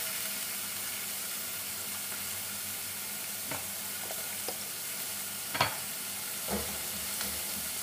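Oil sizzling steadily in a pot of frying onion, ginger-garlic paste and tomato paste, with a few short knocks as the pot is stirred with a wooden spoon, the loudest a little past halfway.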